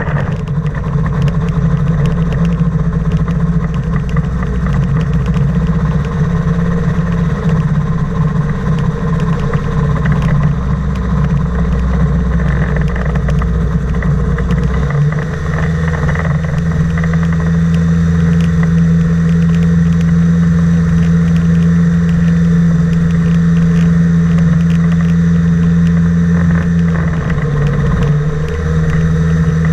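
Engine of a flying inflatable boat running loud and steady, its note shifting slightly about halfway through and dipping briefly near the end.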